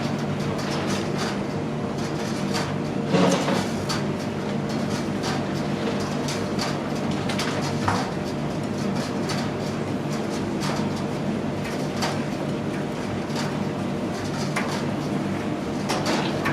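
Commercial gas tumble dryer running, its drum turning with a steady hum and scattered knocks from the load. About three seconds in, the gas burner relights with a brief louder rush.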